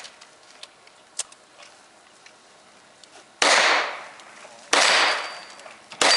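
Three revolver shots from a Smith & Wesson 610, evenly spaced about 1.3 seconds apart and starting about three and a half seconds in, each a sharp crack with a short ringing echo.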